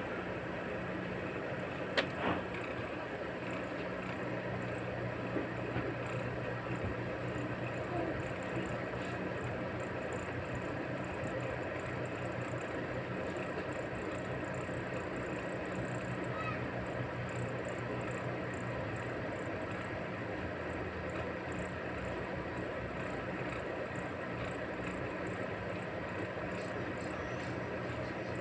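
Steady background noise: a continuous high-pitched whine that flutters slightly, over a low steady hum, with a single click about two seconds in.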